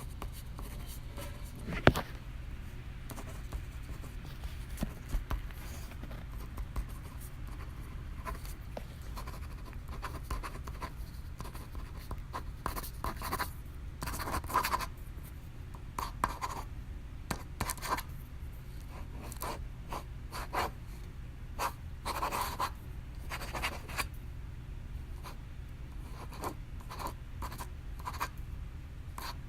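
Pen writing on paper: short, irregular scratching strokes with brief pauses between them. A sharp tap comes about two seconds in, over a faint low hum.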